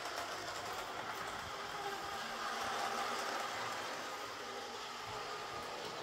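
Hornby Class 56 OO gauge model diesel locomotive running along the layout track, its small DC electric motor giving a steady whine over the running noise of its wheels on the rails, a little louder about halfway through. The loco is running again after repair of its dead motor.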